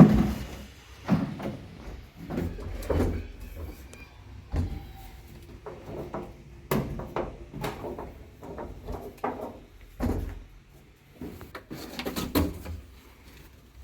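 Irregular knocks, clunks and scraping from things being handled. There is a sharp knock at the start and another about seven seconds in.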